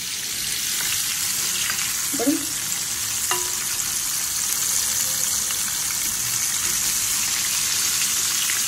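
Boneless chicken pieces in a wheat-flour coating deep-frying in hot oil in a kadai: a steady, even sizzle. A metal slotted spoon stirs the pieces and lifts them, and there are a couple of light clicks.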